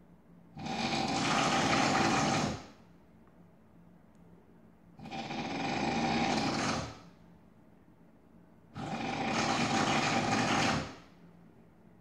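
A sleeping man snoring loudly: three long, rattling snores of about two seconds each, coming roughly every four seconds, with quiet breathing in between.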